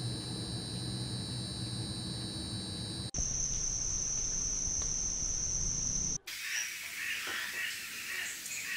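Night insects chirring in steady high trills, cut together from three clips: several high tones over a low hum at first, one louder single high trill from about three seconds in, and scattered, irregular chirping from about six seconds in.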